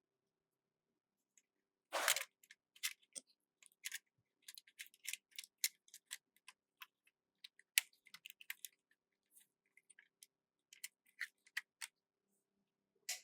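Irregular small, sharp clicks and taps from handling and fitting small parts by hand, with a short scrape about two seconds in.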